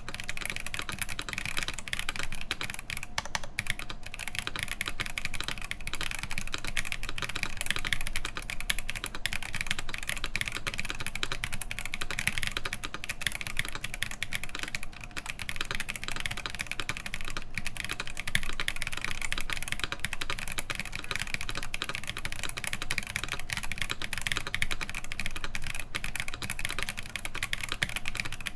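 Continuous typing on a Matrix Lab IM+ Mr Hat mechanical keyboard: a dense, steady stream of key clicks from stock Holy Panda tactile switches in a full aluminum plate, under GMK keycaps.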